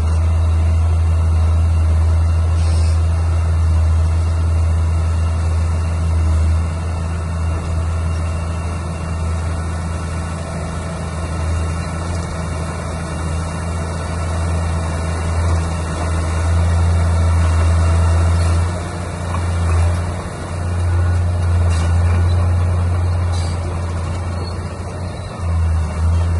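Heavy diesel engine of earthmoving machinery running under load, a loud low drone that eases off briefly a few times, around the last third and near the end, and picks up again.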